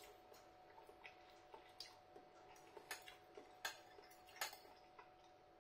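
Near silence with a few faint, irregular clicks from eating a meal.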